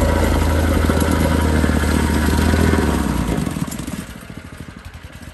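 Petrol plate compactor running as it compacts a crushed-stone driveway sub-base, then switched off about three seconds in; the engine runs down, its beats slowing and fading away.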